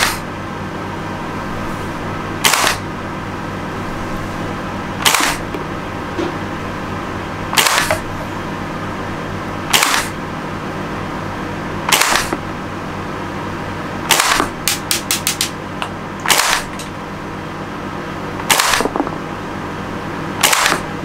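KSC TAR-21 gas blowback airsoft rifle firing ten single shots about two seconds apart into a chronograph for a velocity test, each a sharp pop. A quick run of light clicks comes about halfway through, over a steady background hum.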